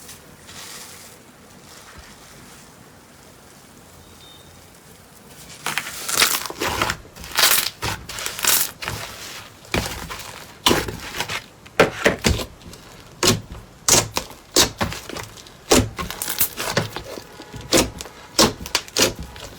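Slime being pressed and squeezed by hand: after a quiet start, an irregular run of short, sharp sounds begins about six seconds in, several a second.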